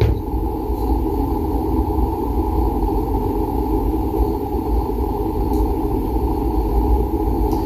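A steady, low mechanical rumble of a machine running without let-up.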